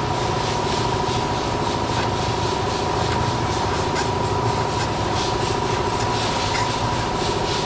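Chainsaw chain being sharpened by hand with a file, rasping strokes across the dull cutter teeth, over a steady hum.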